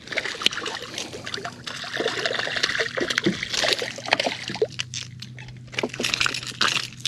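Hooked fish splashing and thrashing at the water's surface beside the boat, with water splattering and dripping in many short bursts over a faint steady low hum.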